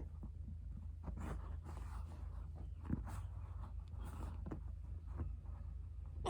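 Soft, irregular handling noises of Play-Doh being pressed, shaped and set down on a tabletop, with one sharper click about three seconds in, over a steady low hum.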